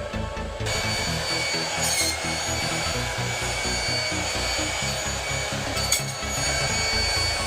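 A handheld hairdryer switches on under a second in and runs with a steady hiss and a high whine, over electronic dance music with a steady beat.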